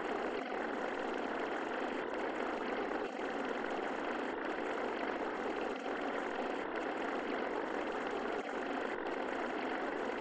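Steady, even rushing noise with no pitch, dipping briefly every second or two.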